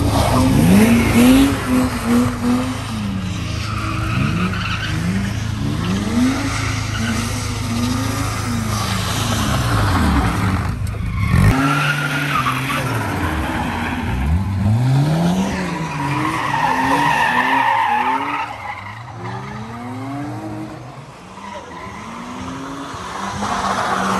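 Cars drifting: engines revving hard, their pitch repeatedly climbing and dropping, while the tyres squeal and skid.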